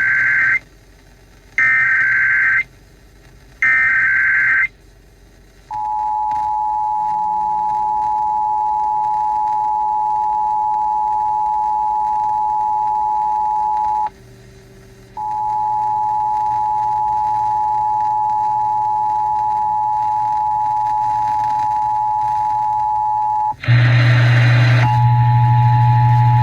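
Emergency Alert System broadcast: three short screeching digital header bursts, then the steady two-tone attention signal, which drops out briefly about halfway. Near the end a loud low hum and a short burst of noise come in under it.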